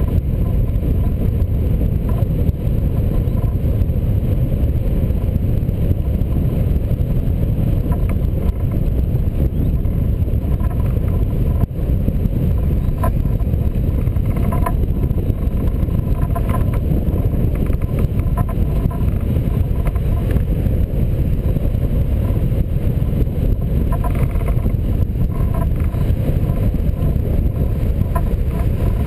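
Wind rushing over a microphone mounted on a hang glider in flight: a loud, steady, low rumble of airflow.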